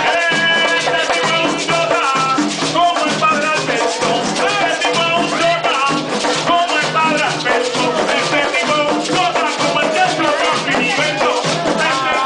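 Live Puerto Rican plena: panderos, the hand-held frame drums, beaten in a steady driving rhythm with a scraped güiro, and a man singing the lead over them.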